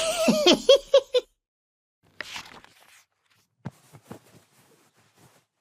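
A voice's pitched, pulsing call, the tail of a playful cow "moo", dies away in the first second. After it come a short hiss and a few faint clicks.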